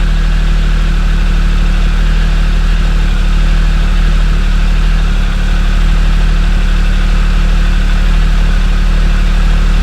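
Triumph Explorer 1200's three-cylinder engine idling steadily in neutral.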